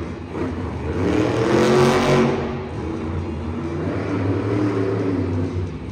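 Megalodon monster truck's supercharged V8 revving hard, loudest about two seconds in, then running on at a steadier, lower pitch as it drives across the arena floor.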